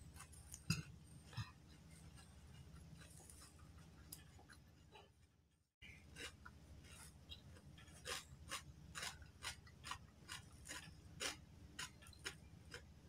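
Faint eating sounds: chewing and lip smacks, with soft clicks of fingers scooping rice and raw-tempe sambal from a stone mortar, coming most often in the second half. The sound drops out briefly about five and a half seconds in.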